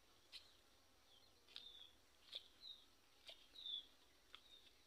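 Faint bird chirps: short high calls about a second apart, some dropping slightly in pitch, with a few light ticks between them.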